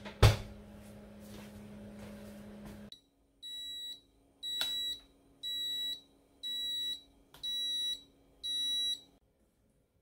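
A refrigerator door thuds shut, the loudest sound, over a steady low hum. Then a Tiger IH rice cooker beeps six times, each beep long and at the same pitch, about one a second, signalling that the rice has finished cooking.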